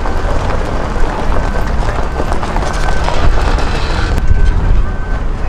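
A pickup truck towing a travel trailer driving slowly past on a muddy gravel road, its engine and tyres under a heavy rumble of wind on the microphone. A faint high beep repeats now and then.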